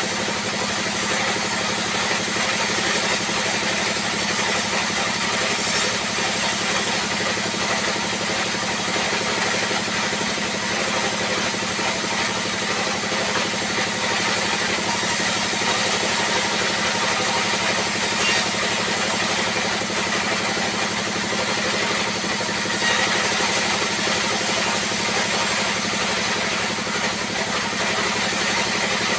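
Sawmill band saw running and ripping rough planks of raw timber lengthwise: a steady, unbroken mechanical din with no pauses.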